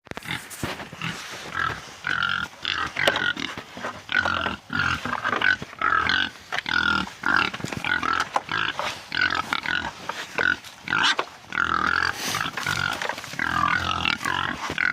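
Hungry hogs squealing in a steady run of short calls, about two a second, with a few sharp knocks among them, while they wait to be fed.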